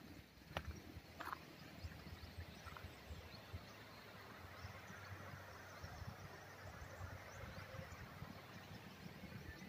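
Faint outdoor ambience: a steady low rumble and hiss, with two sharp clicks in the first second and a half.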